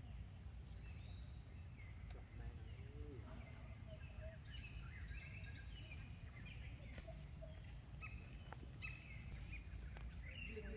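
Quiet outdoor ambience: a steady high-pitched drone over a low rumble, with scattered short chirps and calls throughout.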